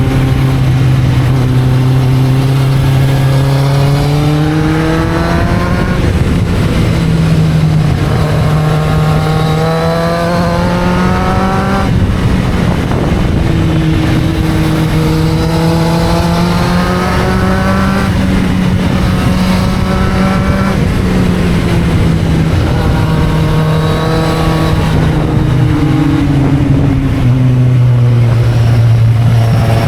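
Kawasaki Z750's inline-four engine running under way, its pitch climbing and falling back about half a dozen times as the rider rolls on the throttle and changes gear.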